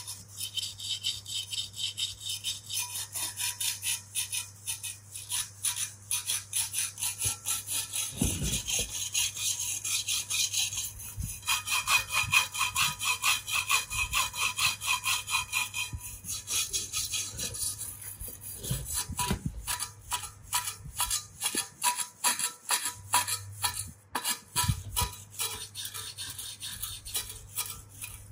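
Hand wire brush scrubbing rust and flaking paint off the metal housing of an old electric pump motor, in quick, repeated back-and-forth scraping strokes.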